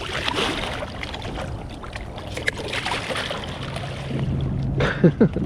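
Sounds aboard a small open fishing boat: wind and water noise with scattered knocks and clatter of handling on deck. A steady low hum joins about three and a half seconds in, and a brief vocal sound comes near the end.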